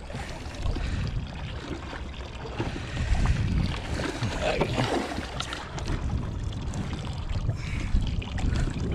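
Wind rumbling on the microphone aboard a small fishing boat, with sea water moving against the hull and faint voices around the middle.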